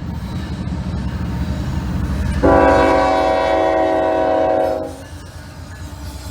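Diesel locomotive horn sounding one long blast of several tones together, starting about two and a half seconds in and lasting about two seconds, over the steady low rumble of the train.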